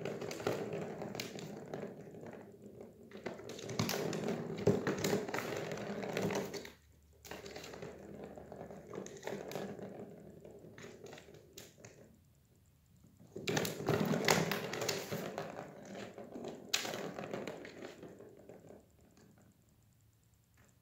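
Ball rattling and clicking around the plastic track of a circular cat track toy as a cat bats at it with its paw. The clattering comes in three spells with short pauses and dies away near the end.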